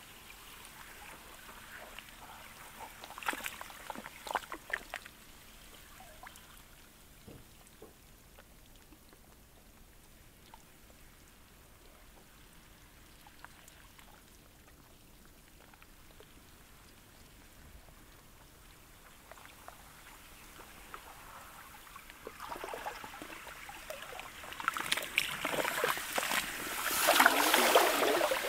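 Sludge and pancake sea ice lapping at the shore: faint clicks and trickles of water among the ice, a quiet stretch, then a wash of water and ice that builds over the last few seconds and is loudest near the end.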